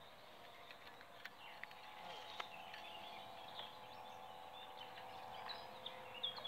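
Faint steady hum of a radio-controlled model boat's motor as it runs across the water, with scattered bird chirps over it and a couple of brief ticks.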